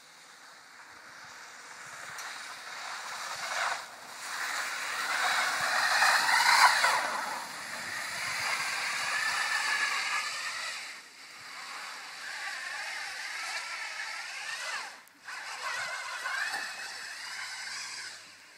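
Compact sedan driving along an icy, slushy road: engine revving with a wavering pitch over tyre noise in slush. It grows louder as the car approaches and drops off briefly three times as the revs cut.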